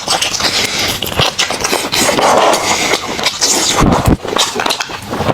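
Close-miked chewing of meat, with quick wet clicks and smacking sounds one after another.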